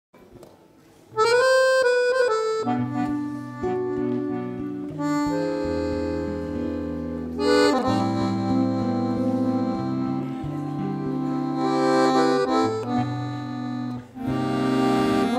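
Accordion (sanfona) playing sustained chords and melody lines in a Brazilian forró tune, coming in about a second in, with a nylon-string classical guitar accompanying; a brief drop just before the end.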